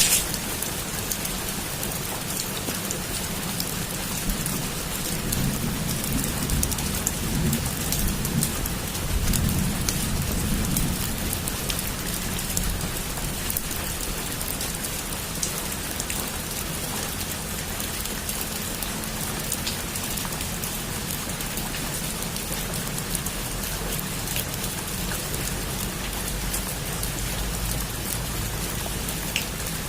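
Heavy rain falling steadily on a roof, a dense even patter. A low rumble of thunder swells and fades between about five and eleven seconds in.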